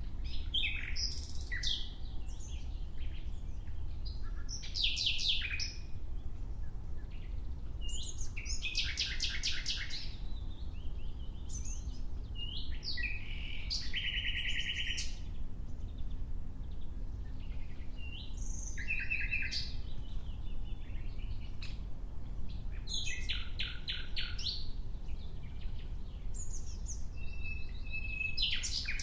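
Nightingale singing in separate phrases of a second or two with short pauses between them. Many phrases are fast trills of rapidly repeated notes; others are whistled or sliding notes. A steady low rumble runs underneath.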